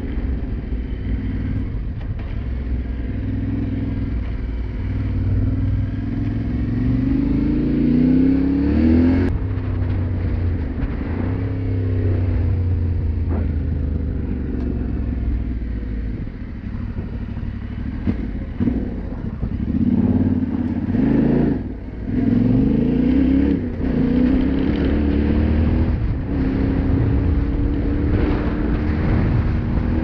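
Yamaha Ténéré 700's 689 cc parallel-twin engine under way, revving up through the gears with its pitch climbing several times. It breaks off sharply about nine seconds in and dips again briefly past the twenty-second mark, then runs on steadily.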